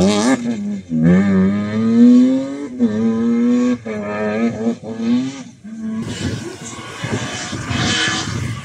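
Rally car engine revving hard as the car accelerates away through the gears, its note climbing and breaking off at each upshift about once a second. After about six seconds the engine note gives way to an even rushing noise.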